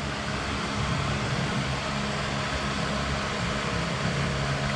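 Steady machine hum with low, even droning tones under a constant hiss, unchanging throughout.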